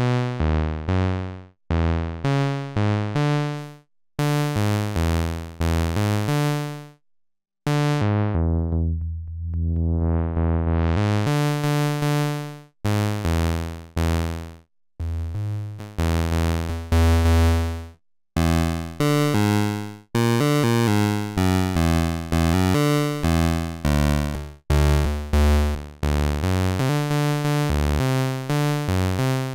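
Behringer Model D analog monosynth playing a run of short, low, decaying notes. About eight seconds in, a held note is filtered down until only a dull low tone is left, then swept back up to bright: a filter-cutoff sweep.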